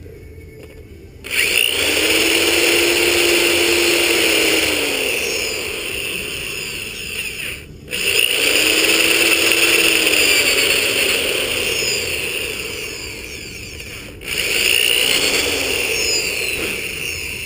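Electric drill running in three bursts, each starting abruptly and slowing over several seconds, as it enlarges rivet holes in a motorcycle exhaust sleeve.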